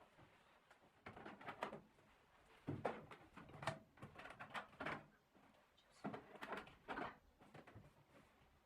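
Faint clicks, knocks and rustles in four short bursts: someone fumbling at a microwave's door, trying and failing to get it open.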